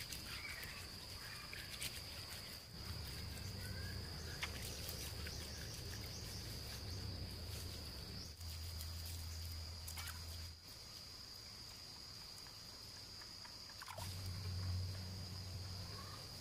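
Outdoor ambience dominated by a steady high-pitched insect drone, with a low rumble and faint soft clicks as wet mud plaster is smoothed by hand.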